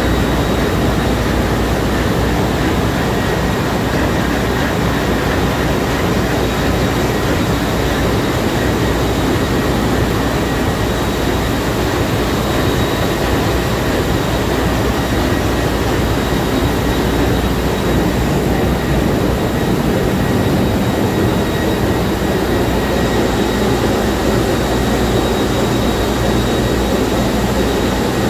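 Sulzer 6-62RTA six-cylinder two-stroke low-speed marine diesel main engine running at full speed, heard up close in its engine room as a loud, steady din with a faint high whine running through it.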